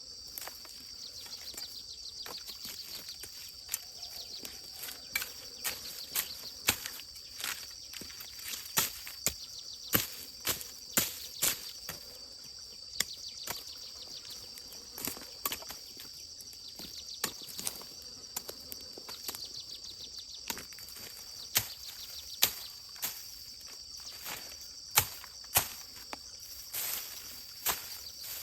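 Steady high-pitched insect trilling, pulsing in places, with irregular sharp clicks and knocks scattered throughout.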